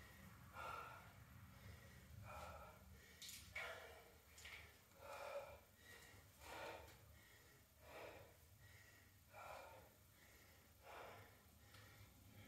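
A person breathing hard between cardio exercises, faint and regular, with one breath about every second and a half.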